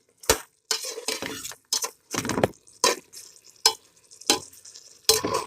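A spoon stirring chicken, spice paste and beaten egg in a cooking pot, scraping the pan in about eight irregular strokes, with light sizzling as the egg cooks into the masala.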